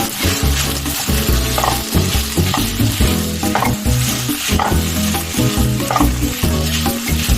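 Food sizzling as it fries in a pan while being stirred, with a steady hiss and light stirring strokes about once a second.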